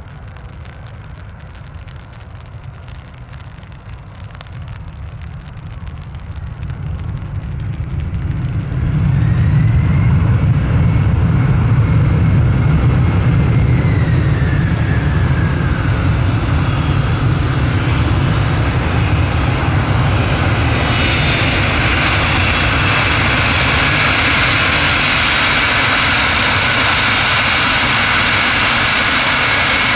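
Boeing 767 jet airliner landing, its engine noise growing steadily louder for about nine seconds, then loud and steady, with a whine that falls in pitch as it passes. From about twenty seconds in, a louder, hissier roar takes over.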